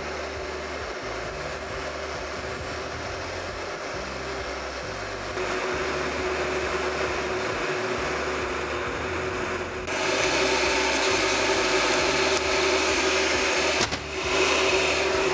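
Electric heat gun running steadily, its fan blowing with a steady hum while it heats a roller bearing for an interference fit. The sound steps louder about five seconds in and again near ten seconds, with a brief dip near the end.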